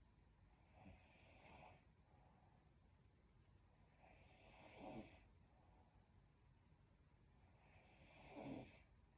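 A woman snoring faintly in her sleep: three slow breaths, about three and a half seconds apart, each swelling to a brief snore at its end.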